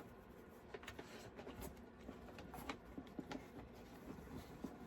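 Faint, scattered light clicks and rustles in a quiet room.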